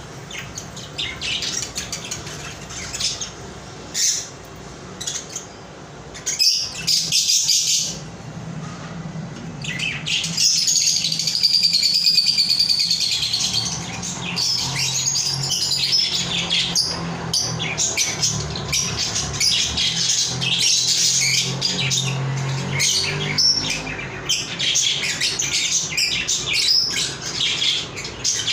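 Parrots chirping and squawking in a rapid, continuous chatter of high calls, denser and louder from about a third of the way in, over a steady low hum.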